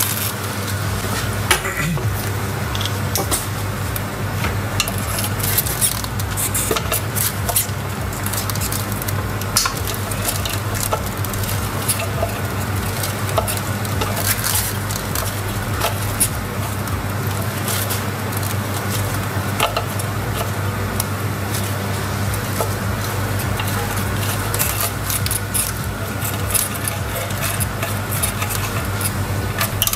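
Screwdriver working the electrical terminals on a water heater's heating-element flange: scattered small metallic clicks and scrapes over a steady low hum.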